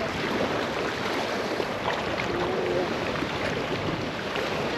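Steady rushing of waves and moving water.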